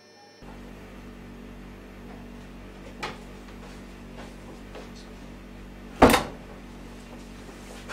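Steady low room hum, with a faint click about three seconds in and then one loud, sharp bang about six seconds in.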